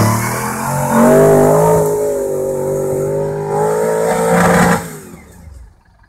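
V8 engine of a competition safari off-road buggy revving hard under load while climbing a steep dirt hill. The engine note rises about a second in, holds steady, surges once more, then drops away sharply near the end.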